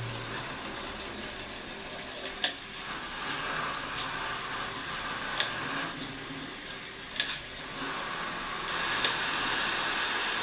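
Shower head spraying water steadily, with a few short sharp knocks or clicks spread through it; the spray gets a little louder near the end.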